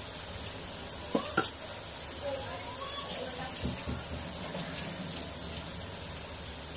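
Onion bhajias deep-frying in hot oil: a steady sizzle, with a few louder pops at about 1.5, 3 and 5 seconds in.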